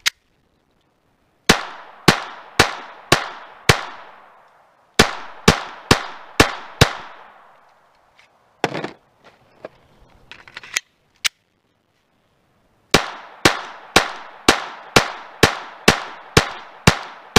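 Glock 44 .22 LR pistol fired in quick strings, about two shots a second: five shots, five more, then about ten, each shot with a ringing tail. A few quieter knocks fall in the pause between strings. The 36-grain rounds from this lot are cycling the slide with no stoppages.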